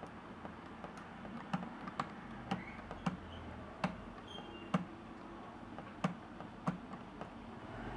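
Light, sharp clicks and taps at irregular intervals, about a dozen in all, from hands working on a small netbook's plastic case and parts.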